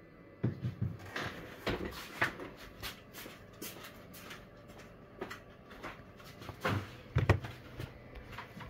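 Handling noise: an irregular run of light clicks, taps and knocks as a smartphone and its loose display panel are picked up and turned over in the hand, with a louder knock about seven seconds in.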